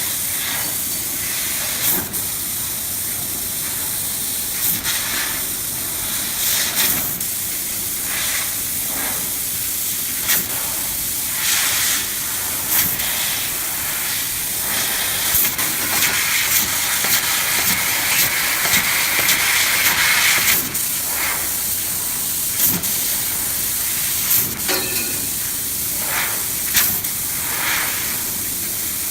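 1530FI CNC fiber laser cutting 1 mm stainless steel: the assist-gas jet at the cutting head gives a steady hiss, broken by frequent short clicks and puffs as cuts start and stop. The hiss gets louder and brighter for a longer stretch about 16 to 20 seconds in.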